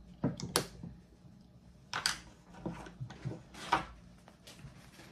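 Scattered light clicks and knocks of plastic measuring spoons and ingredient bottles being handled on a wooden tabletop, the sharpest about half a second and two seconds in.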